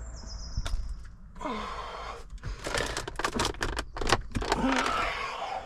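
A car's handbrake lever being pulled on tight, its ratchet giving a run of quick clicks in the middle of the stretch, among some handling and rattling noise.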